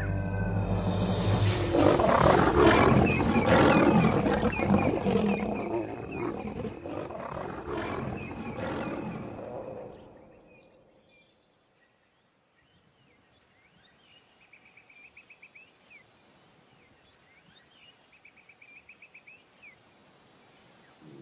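Lions snarling and roaring in a fight, the noise dense and loud, then fading out about ten seconds in. After that it is quiet, with a few faint short trills from night insects or birds.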